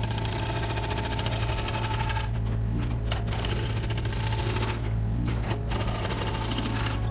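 Mini Komatsu excavator's hydraulic breaker chisel hammering concrete in a rapid, even stream of blows, stopping briefly a couple of times, with the machine's engine running steadily underneath.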